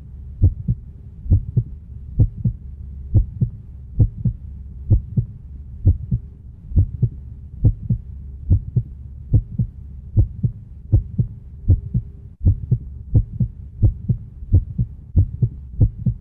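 A heartbeat-like low thumping, about three thumps a second in a steady rhythm, over a constant low hum, with nothing in the higher range.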